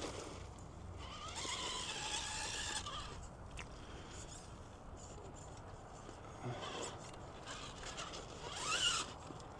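RC rock crawler's electric motor and geared drivetrain (Hobbywing QuicRun motor/ESC, SCX10 II transmission) whining faintly under throttle as the truck crawls. The whine picks up about a second in and rises in pitch briefly near the end.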